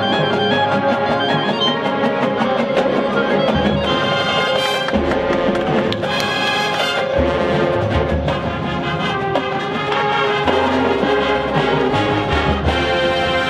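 High school marching band playing live: brass chords and melody over drums and front-ensemble percussion, with bright crashes about four and a half seconds in, around six seconds, and again near the end.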